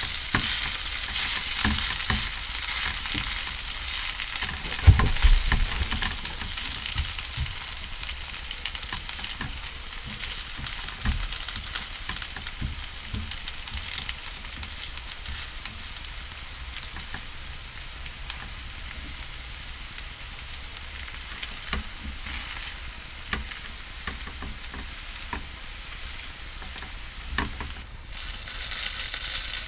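Broccoli and cauliflower fritter mixture sizzling in hot oil in a non-stick frying pan, the sizzle loudest in the first few seconds. A spatula scrapes and taps in the pan, with one louder knock about five seconds in.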